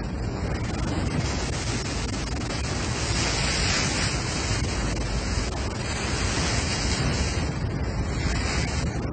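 Steady rush and splash of water breaking at the bow of a fishing boat under way, with wind blowing on the microphone.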